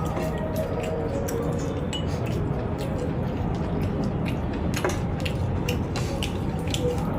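Eating sounds: light clinks of cutlery against a plate and chewing, as short scattered clicks over a steady low hum.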